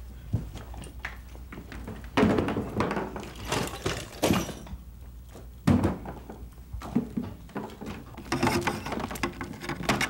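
Objects being knocked and shifted about in a small room: a series of irregular thuds and clunks with stretches of clatter between them.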